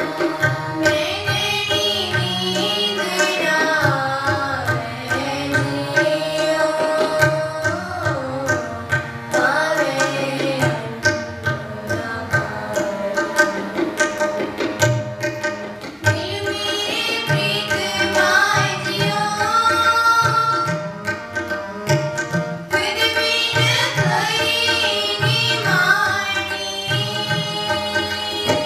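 Sikh shabad kirtan: girls' voices singing in phrases over harmoniums holding steady chords, with a tabla pair playing a steady rhythm, the bass drum's pitch gliding under the strokes.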